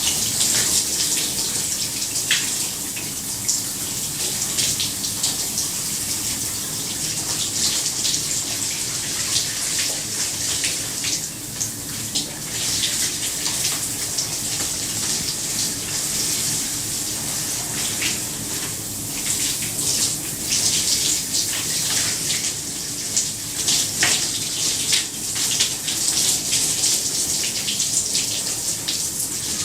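Shower running: a steady spray of water hissing and splashing onto a hard surface, with small irregular surges and spatters throughout.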